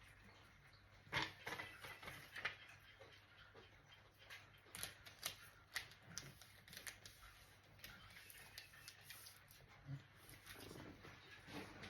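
Faint, scattered light clicks and taps of hands and small tools handling a laptop's casing and parts.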